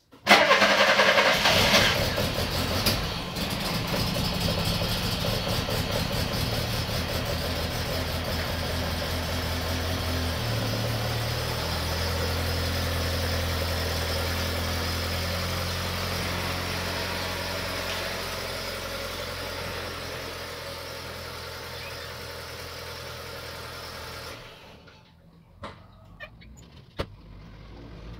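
Fiat Fiorino van's engine starting up and running, its note shifting about ten seconds in and fading as the van backs out. The engine is switched off sharply about three-quarters of the way through, and a few sharp clicks and knocks follow.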